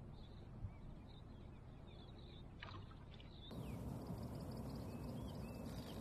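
Small birds chirping repeatedly over steady outdoor background noise, which grows louder about halfway through. There is a single light knock near the start.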